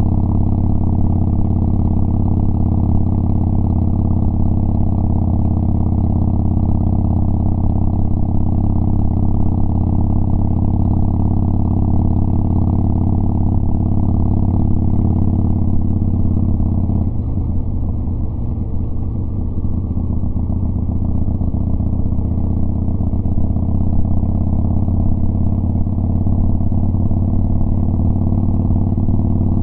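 Harley-Davidson Sportster Iron 1200's air-cooled V-twin running through KhromeWerks 3-inch slash-cut mufflers while riding at a steady speed. A little past halfway the exhaust note changes and dips slightly for a few seconds, then settles back to a steady note.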